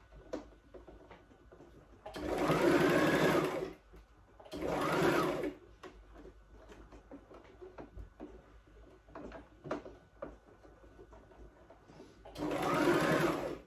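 Domestic electric sewing machine stitching jersey fabric in three short runs, the first about a second and a half long, then about a second, then a last run near the end; in each run the motor speeds up and slows again. Light clicks and taps of the fabric being handled fill the gaps between runs.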